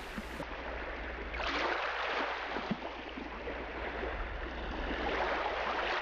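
Sea waves washing, a rushing noise that swells about a second and a half in and again near the end, over a low steady hum.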